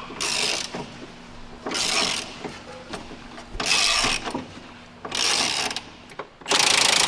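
Hand socket ratchet clicking in four short strokes as it turns a Cessna 401 wing attach bolt, then a louder continuous rasp near the end.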